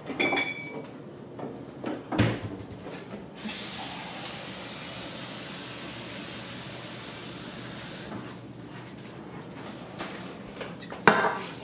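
Tap water running in a steady stream for about four and a half seconds, starting and stopping abruptly, to fill a cup with water for the soup. A couple of sharp knocks of cookware come before it and another near the end.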